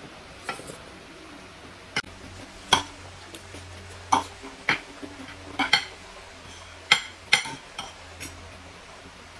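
Metal forks and spoons clinking and scraping on ceramic plates while eating: about a dozen scattered clinks, a few with a short ring.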